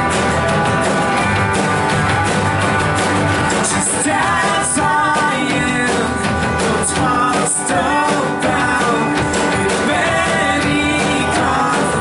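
Live worship band playing a rock-style song with drums and cymbals, a singer's voice carrying the melody.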